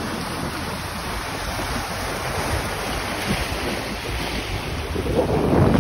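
Sea waves washing and breaking over shoreline rocks, with wind buffeting the microphone; a wave surges louder near the end.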